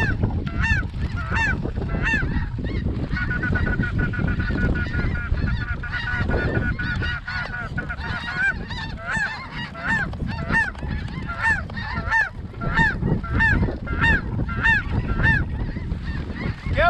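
Snow goose calls: a steady series of high, yelping honks about every half second, with a stretch of fast, even chattering at one pitch from about three to eight seconds in, over a constant low rumble.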